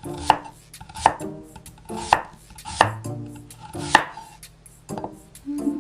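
Knife chopping vegetables for a salad on a cutting board: about five separate sharp strokes, spaced unevenly.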